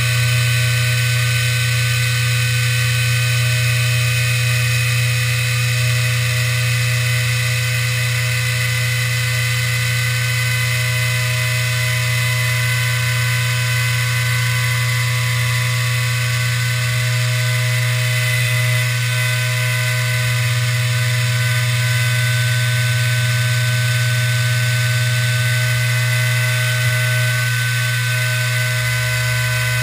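Hobby CNC router cutting with a small end mill: the spindle motor and Xylotex-driven stepper motors run steadily, a strong low hum with several constant whining tones above it.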